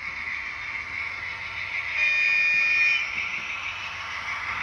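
HO-scale diesel locomotive's DCC sound decoder sounding its horn once for about a second, a little after two seconds in, through the model's small speaker, over a steady hiss.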